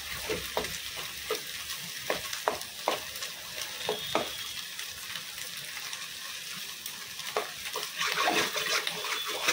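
Scrambled egg sizzling in a stainless steel kadai as it is fried dry, stirred with a steel spoon that clicks and scrapes against the pan several times in the first four seconds and again near the end.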